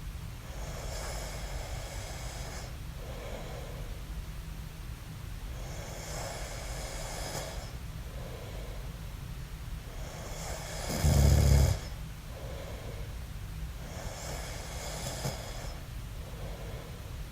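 A man snoring in sleep, rhythmic breaths about every four seconds: a longer rasping snore, then a short softer breath. About eleven seconds in, one snore comes out much louder and deeper, as a snort.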